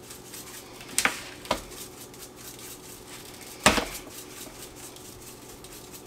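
Metal rotisserie spit and forks clinking against a metal sheet pan as the skewered roast is turned: three sharp clinks, two close together about a second in and a louder one past halfway.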